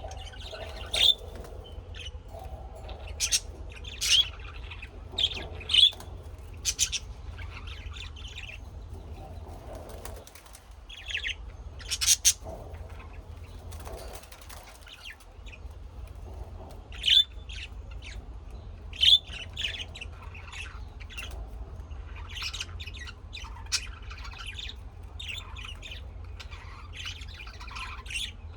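Birds chirping and squawking, a string of short, sharp calls coming at irregular intervals over a low steady hum.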